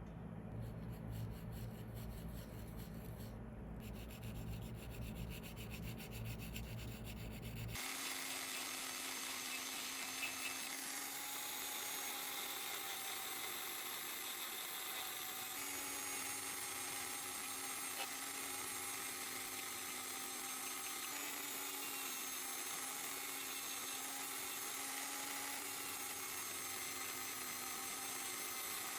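Steady rubbing and grinding of a tool working a small watch part. A low hum gives way abruptly, about eight seconds in, to a small rotary tool's steady whine with an abrasive hiss.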